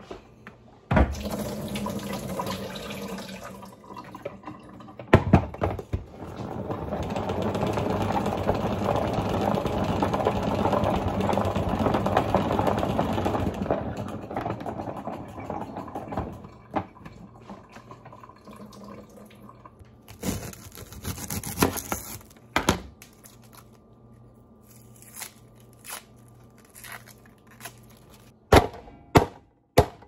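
Salad-making sounds at a kitchen counter: a sharp knock about a second in, then a tap running for about seven seconds, and scattered knocks. Near the end comes a quick run of sharp chopping thunks.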